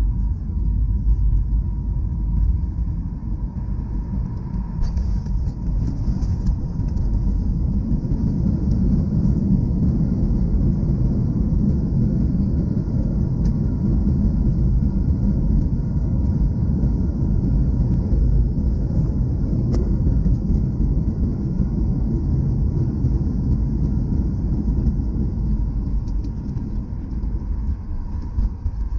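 Cabin noise of a Boeing 737-800 rolling out on the runway after touchdown: a steady low rumble of engines and wheels, with a faint steady whine above it.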